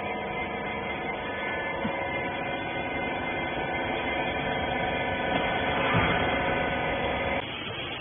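Steady hum of a wiper bagging baler's hydraulic power unit running, electric motor and pump, with mechanical noise mixed in; it cuts off suddenly near the end.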